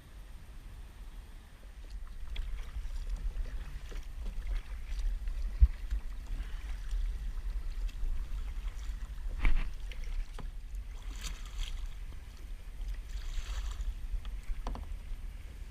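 Sounds of a kayak on the water: splashes, likely from paddle strokes, and a few sharp knocks on the hull, over a low wind rumble on the microphone.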